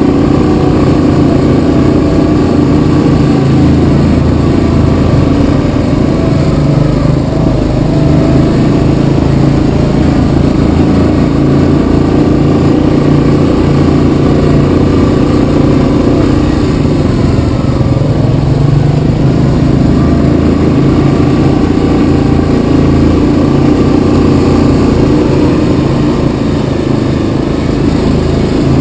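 Yamaha Kodiak 700 ATV's single-cylinder four-stroke engine running on a trail ride, its pitch rising and falling a little with the throttle.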